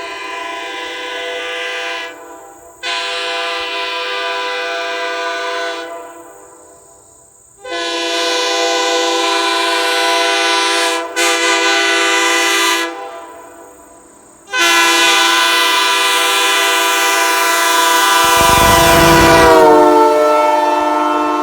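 Holden sandcast K3L three-chime locomotive air horn blowing a steady chord in four blasts, the last one long. Near the end there is a low rumble and the chord sags slightly in pitch.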